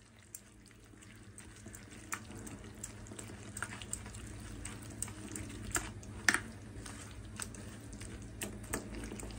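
Wet squelching of thick gram-flour (besan) batter with sliced onion being beaten by hand in a steel bowl. It starts softly and grows louder over the first couple of seconds, with occasional light clicks.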